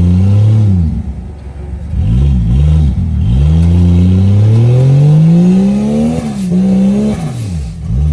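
Off-road 4x4 competition vehicle's engine revving hard under load. The throttle is blipped a few times, then held in a long rising climb for about three seconds before the revs fall off, pick up briefly and drop again near the end.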